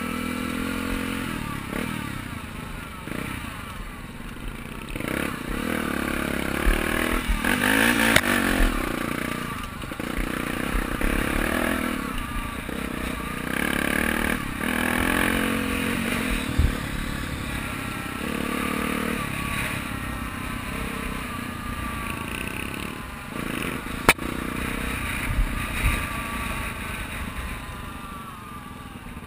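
Dirt bike engine revving up and dropping back repeatedly as it is ridden through the gears over a rough trail, with occasional knocks and rattles from the bike over bumps. It eases off near the end.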